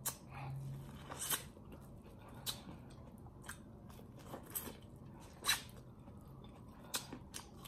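Corn on the cob being bitten and chewed close to the microphone: scattered crisp crunches and wet mouth clicks, the loudest about five and a half seconds in.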